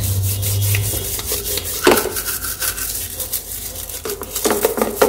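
Bottle brush scrubbing the outside of a plastic baby bottle in soapy water: quick, repeated bristle strokes, with one louder knock about two seconds in.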